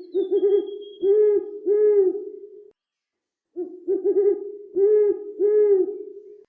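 Owl hooting: two bouts of repeated hoots, each bout a few quick short hoots followed by longer ones, with about a second's pause between the bouts.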